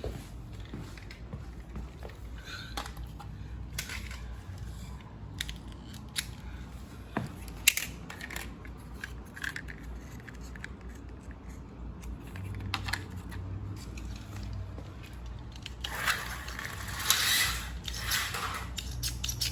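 Carrera slot cars running on a plastic slot-car track: scattered clicks and rattles over a steady low hum, with a louder stretch of rushing noise about sixteen seconds in.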